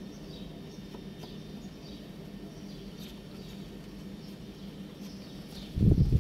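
Faint high chirps of birds over a low, steady background. Near the end comes a sudden cluster of loud, low thuds: wood knocking on wood as a carved wooden shovel head is pushed down onto its wooden handle.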